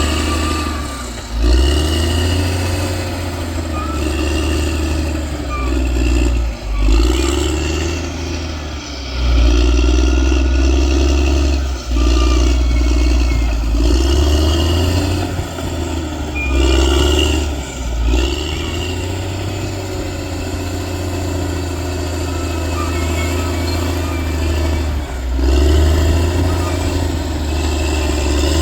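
Bulldozer's diesel engine working under load, its revs rising and falling every few seconds with a few brief sharp dips.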